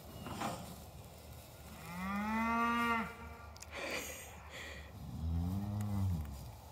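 Cattle mooing twice: a higher call that rises and falls, lasting about a second, starts about two seconds in. A lower, deeper moo follows about five seconds in.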